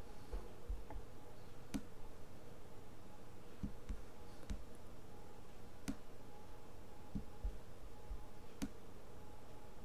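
Scattered single clicks of a laptop trackpad, about seven over several seconds, as strokes are drawn and the playhead is moved, over a faint steady hum.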